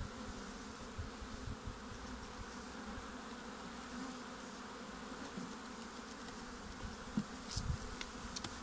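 Honeybees buzzing in a steady hum over an opened hive. A few light knocks come near the end.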